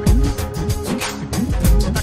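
Background music with a steady beat: deep drum thumps under held tones and a bright percussive tick.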